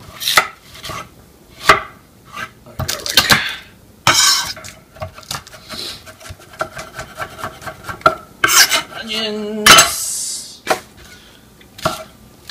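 Large kitchen knife chopping onion, garlic and spring onions on a wooden cutting board: irregular sharp knocks of the blade on the board, with a couple of longer scraping sounds.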